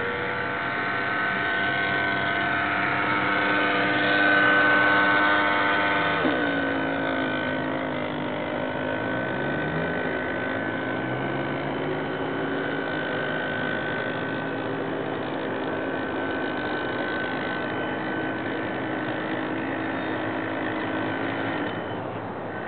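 Motor of a radio-controlled scale model of a 1955 Chris-Craft Sterling runabout, running with a steady whine that rises and falls in pitch. It is loudest around five seconds in, drops sharply in pitch about six seconds in, and climbs again near ten seconds.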